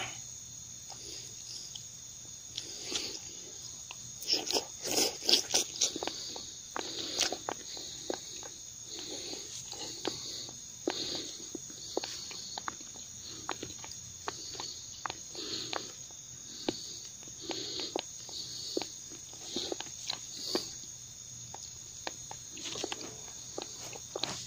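Insects chirring steadily and high-pitched, with irregular soft knocks, clicks and rustles of close handling scattered over it, thickest about four to six seconds in.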